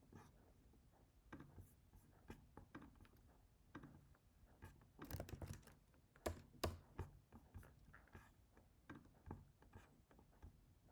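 Faint, irregular typing on a computer keyboard: scattered keystrokes, a short quick run about five seconds in, and a few sharper key clicks a second later.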